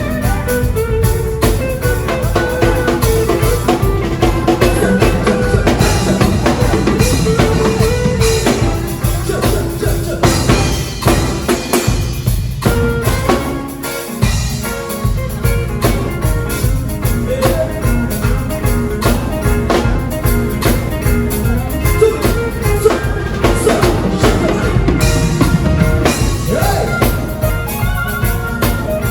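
Live band rehearsing: a drum kit keeps a steady beat under other instruments. The low end drops out briefly about halfway through, then the full band comes back in.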